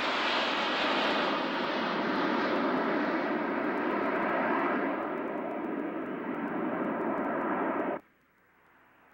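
Jet engines of a formation of aerobatic jets passing overhead: a steady jet roar that eases a little after about five seconds, then cuts off abruptly near the end, leaving a faint hiss.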